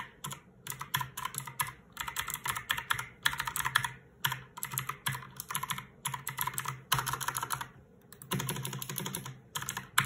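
Typing on a mechanical keyboard with blue switches: fast runs of sharp, clicky keystrokes in bursts with short pauses between them.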